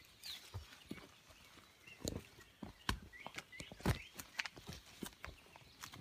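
Footsteps through dry branches and brush: irregular cracks and snaps of twigs breaking underfoot, with rustling of leaves and undergrowth, the loudest snap a little before two-thirds of the way through.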